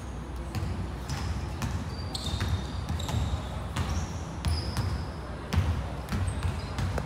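Basketball game on a hardwood court: a ball bouncing in repeated thumps, mixed with short high squeaks of sneakers on the floor.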